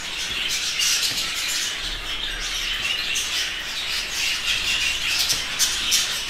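A flock of budgerigars chattering and squawking, mixed with forks stirring and scraping through a crumbly egg-food mash in a bowl.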